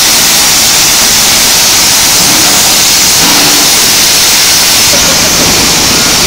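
Oxy-fuel cutting torch on a continuous billet caster, hissing loudly and steadily as it cuts through a red-hot steel billet strand.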